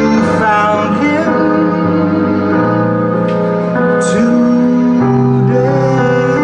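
Digital keyboard played in a piano voice: sustained chords under a melody, with the notes and chords changing every second or so.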